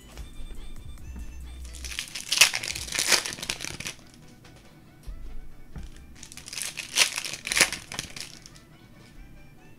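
Plastic trading-card pack wrappers crinkling and being torn open in two bursts, about two seconds and seven seconds in, over quiet background music.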